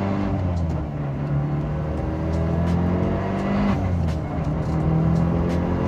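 Turbocharged 2.0-litre four-cylinder engine of a Mitsubishi Lancer Evolution 6.5 Tommi Mäkinen Edition pulling under acceleration, heard from inside the cabin. Its pitch climbs, drops at a gear change a little under four seconds in, then climbs again.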